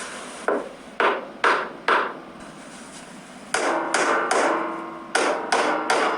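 A hammer striking waste pencils about ten times in three quick runs: four blows, a pause, three, a pause, then three more. The later blows leave a short ringing after each strike.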